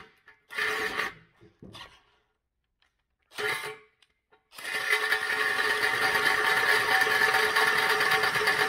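Cordless drill spinning a 4-inch hole saw into an aluminium intercooler tank. It starts in three short bursts, then runs and cuts steadily from about halfway in.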